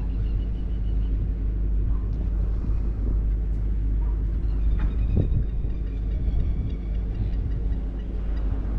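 An engine running steadily at idle: a low, even hum over a deep rumble.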